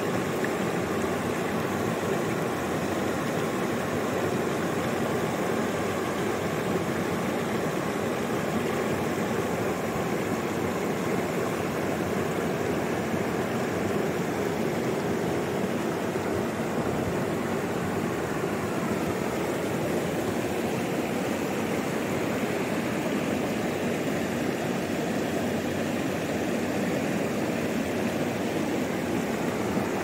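Shallow rocky stream flowing over stones below a small cascade: a steady, even rush of water.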